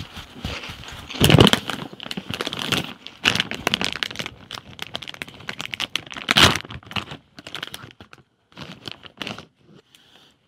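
Clear plastic snack bag crinkling and rustling close to the microphone as a hand handles and rummages in it, in irregular bursts, dense for the first seven seconds or so and then sparser and softer.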